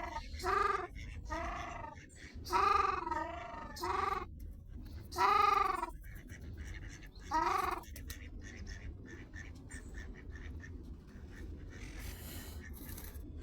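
Young goat bleating: about seven short calls, each rising and falling in pitch, spread over the first eight seconds. After that only faint scattered ticks are heard.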